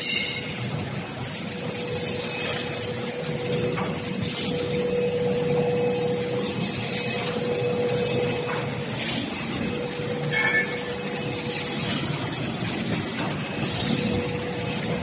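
A4 paper production line machinery running: a steady machine hum with a constant tone, and short hissing bursts every few seconds.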